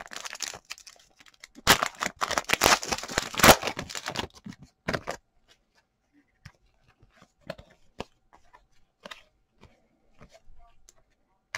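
A 2020 Donruss football card pack's foil wrapper being torn open, with a couple of seconds of ripping and crinkling and a short rip a moment later. Then faint scattered clicks and slides as the cards are handled.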